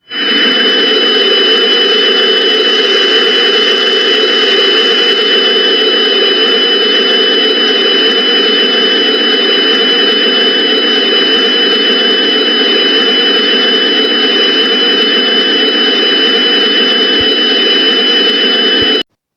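Loud, steady droning noise with two steady high-pitched tones running through it, starting abruptly and cutting off abruptly near the end. It is a looped background-noise track of the kind laid under mock Emergency Alert System broadcasts.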